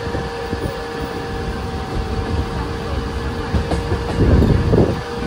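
Mumbai suburban electric local train running: a continuous low rumble with irregular knocks and a steady hum above it, louder about four seconds in.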